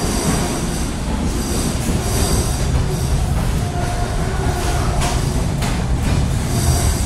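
Railway carriage running along the track, heard from inside the car: a loud, steady rumble and rattle of wheels and body, with a faint wheel squeal partway through and two sharp knocks a little after five seconds in.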